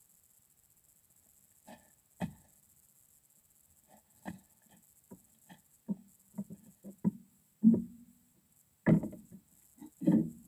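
A series of irregular wooden-sounding knocks and bumps, sparse at first and then coming faster and louder, as a long-tailed goral noses and rubs against the camera.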